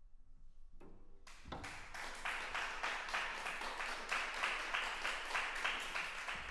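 Audience applauding: quiet for about the first second, then clapping that builds quickly and holds steady.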